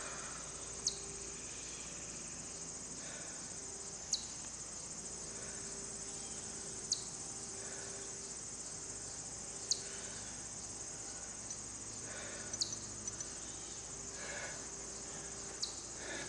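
Steady, high-pitched chorus of insects, with a brief sharp chirp that drops in pitch about every three seconds.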